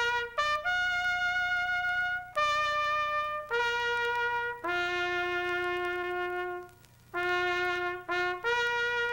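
Music: a solo trumpet-like brass instrument playing a slow, bugle-like tune of long held notes that step up and down. There is a short break about seven seconds in, and the last note is held long.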